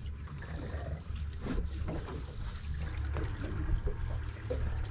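Water lapping against a boat's hull over a low steady rumble, with scattered small knocks and clicks.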